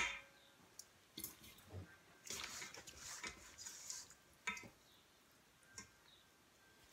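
Faint wet squishing and soft rustling of small salted fish worked by a rubber-gloved hand and dropped into a glass jar, in a few scattered handfuls.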